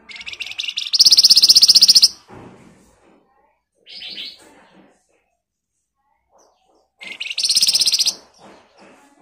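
Flamboyan (Horsfield's babbler) singing in a rapid rattling chatter: two loud, fast buzzing trills of about a second each, one about a second in and one near the end, with a shorter trill between them and softer chattering notes around them.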